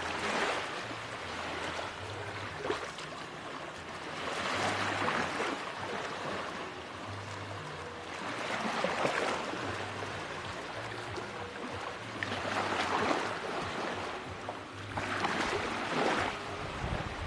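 Ocean waves breaking on a beach, a surge of surf about every four seconds.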